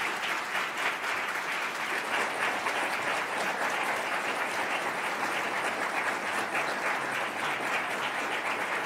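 Lecture-hall audience applauding steadily.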